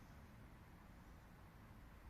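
Near silence: a faint, steady low rumble.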